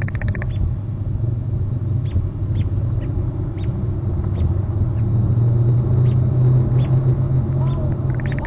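Steady low rumble on the nest-cam microphone. Bald eagle chittering, rapid pulsed calls, comes right at the start and again near the end. Faint short ticks sound about twice a second in between.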